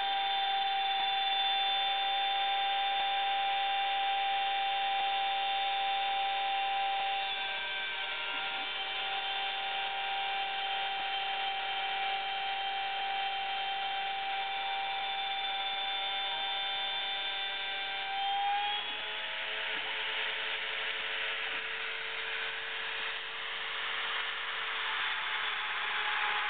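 Homemade CNC gantry router running, giving a steady machine whine made of several held tones that shift about seven seconds in. Near eighteen seconds the pitch bends, and a rougher, noisier stretch follows before the whine returns at the very end.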